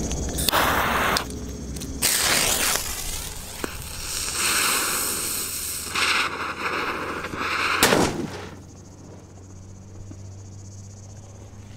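A 'Mamadeira' firecracker (a Brazilian bomba) with its lit fuse hissing and sputtering for several seconds, then one sharp, loud bang about eight seconds in. Brief rustling sounds come in the first few seconds.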